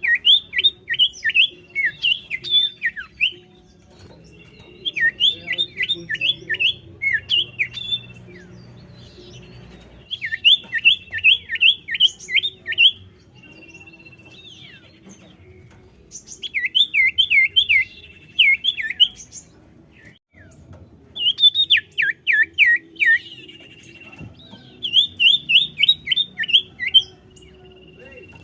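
Common iora (cipoh) singing in repeated bouts: six rapid runs of sharp down-slurred notes, each lasting two to three seconds, with a thin held whistle between some runs.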